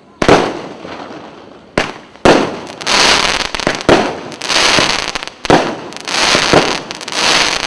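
Majestic Fireworks 'Mission Control' 24-shot cake firing. There is one sharp bang, then two more close together about two seconds in. From about three seconds in, shots and bursts follow rapidly, with dense crackling filling the gaps between them.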